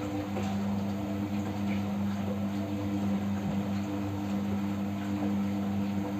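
Siemens washing machine running its final rinse: a steady motor hum with an even hiss of water over it.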